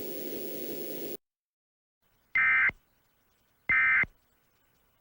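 Emergency Alert System end-of-message data bursts: short, harsh two-tone beeps near 1.5 and 2 kHz, each under half a second and about a second and a half apart. Two sound in full and a third starts at the very end. They follow a faint steady hiss that cuts off about a second in, and they signal the end of the alert.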